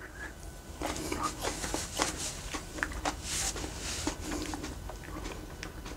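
A person chewing a slice of hot chili pepper, with soft, irregular mouth clicks.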